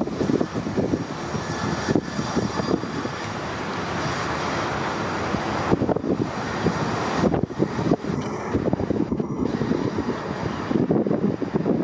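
Jet engine noise from a Bombardier CRJ-200's twin rear-mounted turbofans during a rejected takeoff, a steady rush with a thin high whine that fades about halfway through. Strong gusts buffet the microphone throughout.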